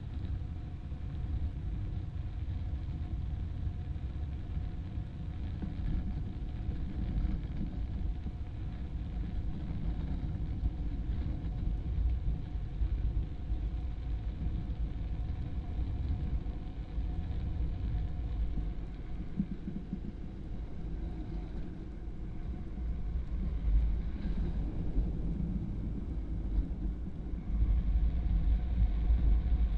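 Drift trike coasting downhill on a wet asphalt road: a steady low rumble of its wheels and of wind on the handlebar-mounted microphone, which grows louder near the end as the speed picks up.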